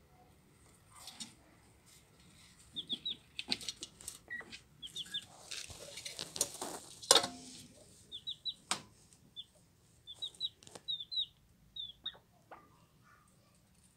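Chick peeping in quick runs of two or three short falling notes, with hens clucking softly. Scratching and pecking taps in the litter and feed dish, busiest in the middle and loudest as a sharp knock about seven seconds in.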